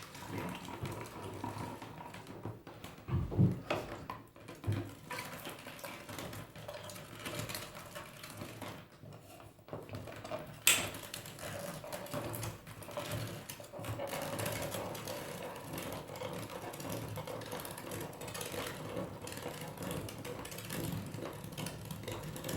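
A Bellemain plastic hand-cranked meat grinder being turned steadily, its auger and blade grinding fresh raw pork in a continuous mechanical churn. A couple of knocks come about three seconds in, and a single sharp click near the middle.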